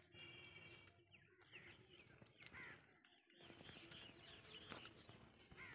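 Faint bird calls: short chirping calls every second or so over a quiet background.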